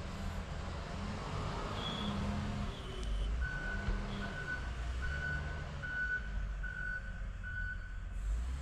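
Reversing alarm on a snow-removal machine beeping about seven times, roughly one and a half beeps a second, starting about three seconds in and stopping near the end, over the steady rumble of heavy diesel engines.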